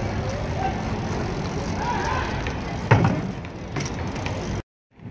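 A BMX bike's wheel coming down hard on asphalt with a single sharp thump about three seconds in, over steady outdoor noise. The sound drops out completely for a moment near the end.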